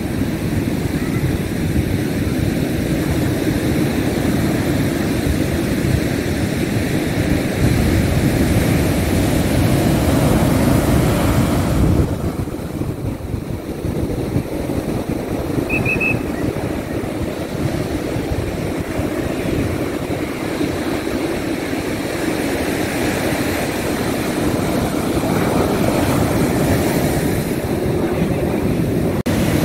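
Ocean surf breaking and washing up the beach: a steady rush of noise, heaviest in the low range, easing off for a moment about halfway through.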